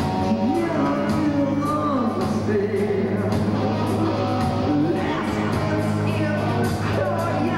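Heavy metal band playing live: distorted electric guitars, bass and drums with steady cymbal strokes. A lead line glides in pitch about a second in, and a singer's voice comes in over the band.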